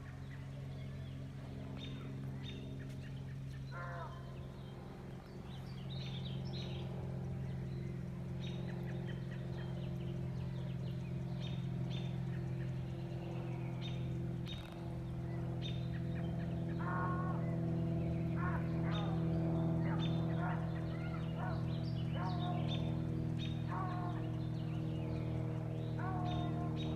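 A pack of coyotes howling and yipping. The high, wavering calls grow busier in the second half, over a steady low hum, with short bird chirps scattered throughout.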